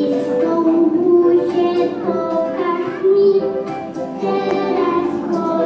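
A group of young children singing a song together over instrumental backing music.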